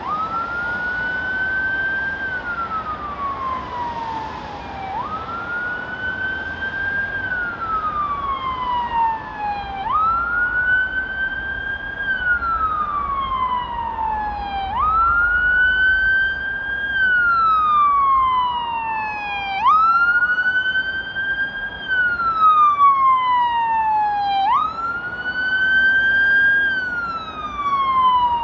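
Emergency vehicle siren sounding a slow wail, each cycle rising quickly and then falling over about three seconds, repeating about every five seconds over the hum of road traffic.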